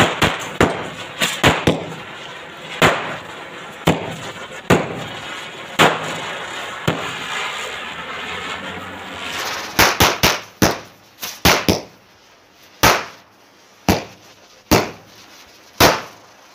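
Ground firework spraying sparks with a steady hiss, while small firecrackers go off around it in sharp, irregular bangs. About ten seconds in the hiss stops and a quick run of bangs follows, then single bangs roughly a second apart.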